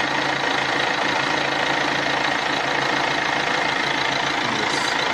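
Volkswagen Amarok four-cylinder common-rail diesel engine idling steadily during an injector return-flow test, with the injectors' leak-off returns feeding graduated cylinders. The engine is logging a low fuel-system pressure fault.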